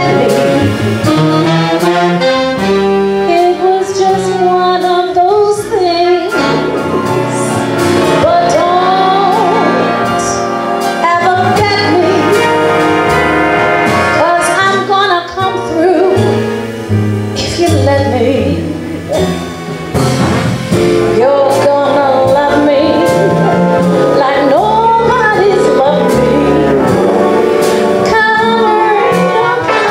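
A woman singing a jazz standard over a live big band, with brass and saxophones playing behind her voice.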